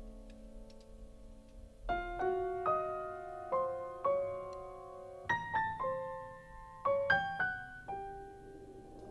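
Unaccompanied grand piano. A held chord fades away, then about two seconds in the pianist starts playing short phrases of struck notes and chords that ring on between the groups.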